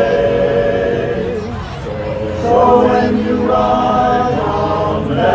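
Men's barbershop chorus singing a cappella in close harmony, holding chords. The first chord fades out about a second and a half in, and a new, fuller chord comes in about two and a half seconds in.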